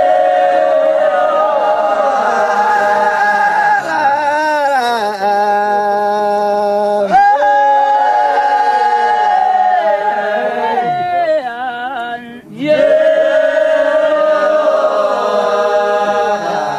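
A group of Wodaabe men chanting together in their vocal warm-up. Their voices hold long, steady notes in phrases that slide down at the ends, with a short break about twelve seconds in.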